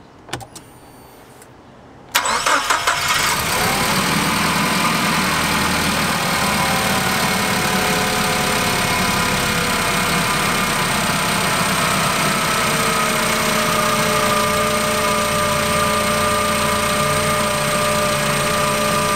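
The Komatsu 25 forklift's fuel-injected four-cylinder pushrod engine cranks briefly and starts about two seconds in, then idles steadily, its pitch easing down over the following few seconds as the fast idle settles.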